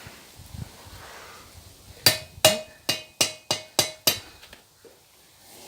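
Blacksmith's hammer striking hot steel on the anvil seven times in quick succession, about three blows a second, each with a short metallic ring: forging the tip of an S hook.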